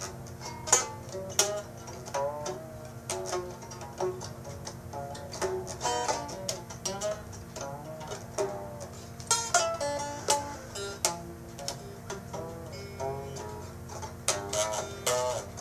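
Music of quick plucked-string notes, irregular and sometimes clustered, over a steady low hum.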